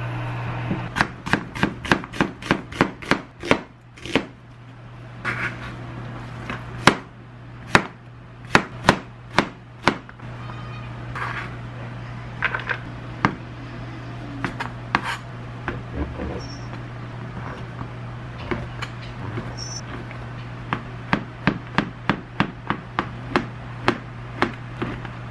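Kitchen knife chopping on a plastic cutting board, slicing vegetables and king oyster mushrooms: runs of sharp taps about four a second, in bursts with short pauses between.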